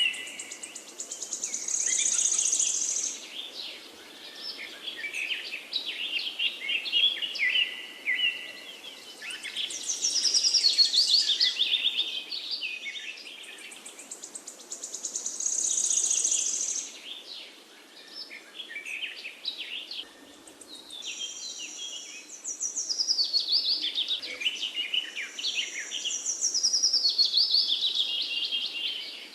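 Songbirds singing: rapid, trilling phrases that come back every four to six seconds, loudest around 2, 11, 16 and 27 seconds in, over a steady hiss of background noise.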